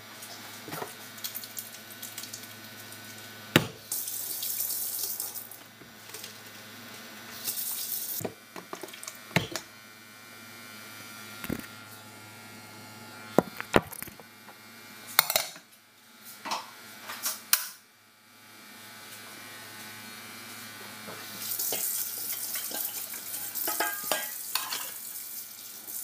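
Kitchen tap running water in two short spells and then a longer run near the end, with sharp clanks and knocks from an aluminium cooking pot and its lid being handled in between.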